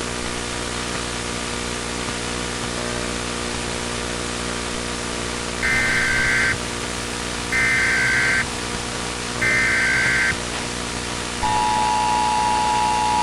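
Steady tape hiss and hum. About halfway through come three short, loud warbling data bursts, each just under a second, spaced about two seconds apart: the SAME header of an Emergency Alert System message. Near the end the EAS two-tone attention signal starts and holds steady.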